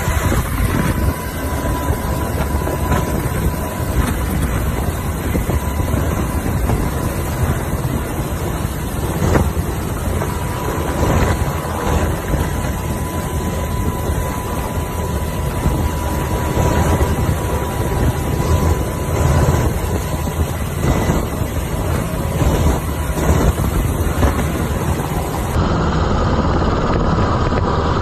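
Black Hawk helicopter's rotors and engines running steadily while it hovers for a hoist rescue, heard at the open cabin door. Wind buffets the microphone, and a steady thin whine runs through the noise.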